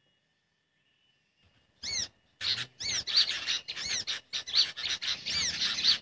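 Bird calls played from a lure recording for birdlime trapping: a rapid, continuous run of high chirps, each a quick rising-and-falling note. The calls start about two seconds in, after near silence.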